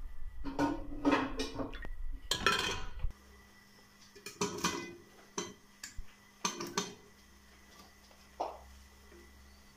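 Metal kitchenware clattering: a steel ladle knocking against an aluminium pressure cooker as oil is poured in, three times in the first three seconds. After that, softer scattered knocks as sliced onions are pushed from a plate into the pot.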